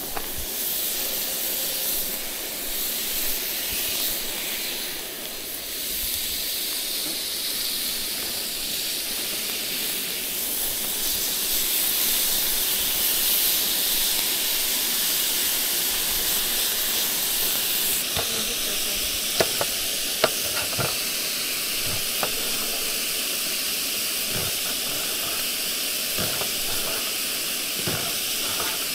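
Marinated fajita meat sizzling steadily as it cooks on a hot surface, with a few light clicks in the second half.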